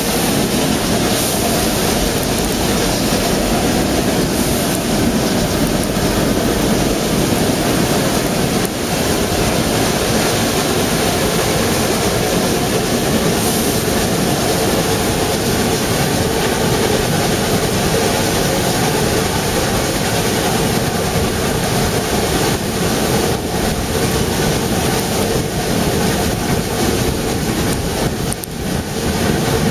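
Narrow-gauge steam train under way, heard from aboard: a loud, steady running noise of the carriages and steam locomotive 99 6101 (built 1914). The noise dips briefly near the end.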